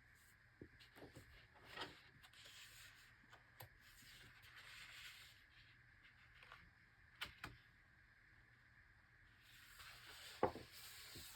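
Quiet handling of large, heavy paper pages in an oversized hardcover book: soft rustles and light taps as pages are turned, with the loudest tap and rustle near the end.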